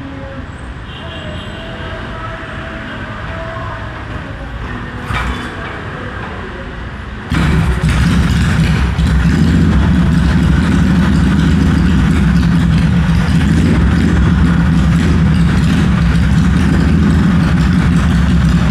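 Yamaha XS650 air-cooled parallel-twin engine starting about seven seconds in, after sitting unused for about a week, then running steadily. Before it catches there is only quiet background and one short click.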